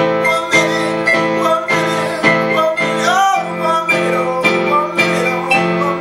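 A man singing a slow, wavering melody over an electronic keyboard playing chords, about two a second.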